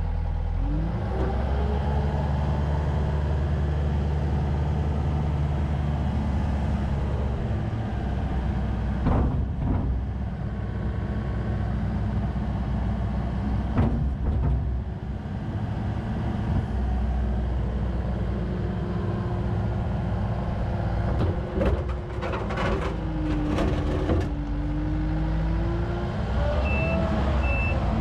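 Takeuchi TL10V-2 compact track loader's 74.3 hp diesel engine running and working, its pitch rising and falling as it is loaded and revved, with several sharp knocks along the way. A reversing alarm starts beeping near the end.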